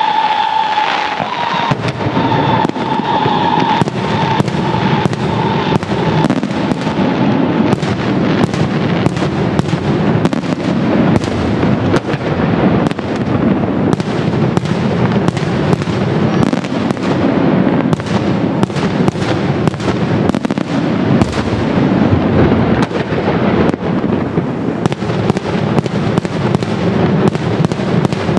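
Italian daytime fireworks: a dense, continuous barrage of aerial shell and salute bangs, several a second, over a steady rumble. A high whistling tone sounds at the start and fades out within the first few seconds.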